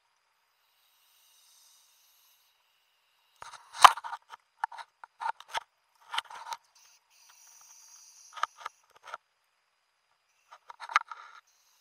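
Irregular bursts of clicking and scraping heard underwater through a wrist-mounted camera's housing as the diver's arm moves and grips, with one sharp knock about four seconds in.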